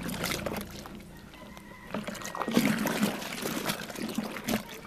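A hand stirring and kneading a foamy molasses-and-water mixture in a metal tub: irregular sloshing and splashing. It eases off about a second in and picks up again near the two-second mark.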